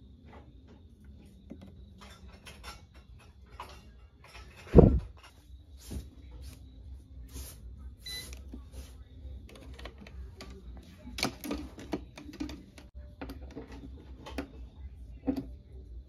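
Scattered clicks and taps of objects being handled, with one loud thump about five seconds in, over a low steady hum.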